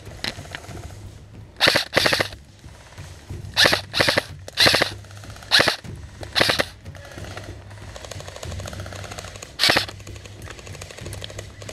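Airsoft rifles firing about eight short full-auto bursts, each a fast rattle of shots lasting a fraction of a second, most of them in the first seven seconds and one more near the end.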